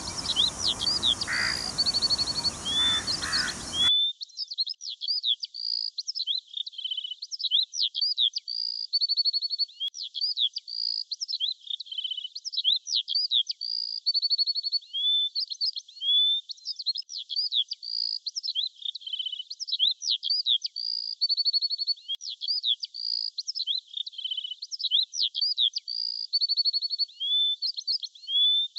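Small songbirds chirping and twittering: quick high chirps, short trills and rising whistled notes, the same phrase coming round again every few seconds. Outdoor background noise under the birds stops about four seconds in, leaving only the thin, high bird sounds.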